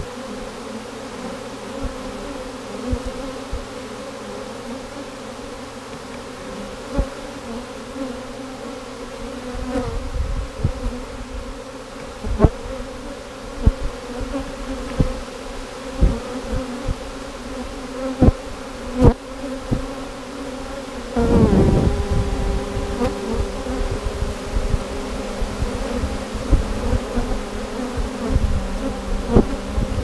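A swarm of honey bees buzzing close up as a steady hum. From about ten seconds in, irregular knocks and thumps close to the microphone join it, and the buzz gets louder a little after twenty seconds.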